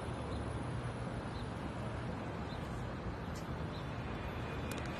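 Steady city street noise: a low, even traffic rumble with no distinct events standing out.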